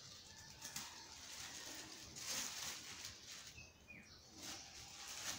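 Faint rustling and crinkling of black plastic bags as the string binding them is untied and pulled away, loudest about two seconds in. A bird gives a short high chirp a little after three and a half seconds in.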